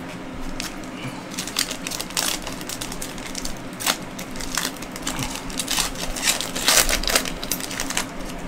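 Foil wrapper of a Panini Prizm Draft Picks trading-card pack crinkling and crackling as it is torn open and handled. The crackles are irregular and sharp, loudest about four seconds in and again near seven seconds.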